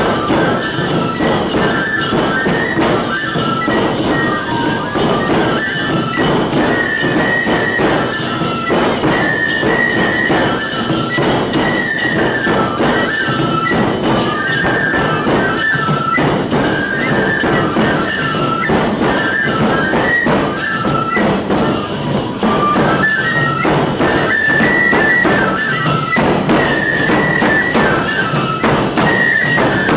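Aomori nebuta bayashi played live: shinobue bamboo flutes carry a high, repeating melody over steady beats of large taiko drums and the clang of tebiragane hand cymbals.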